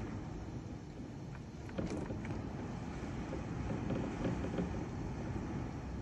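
Steady rushing noise of heavy rain and floodwater running down a street, a little louder from about two seconds in.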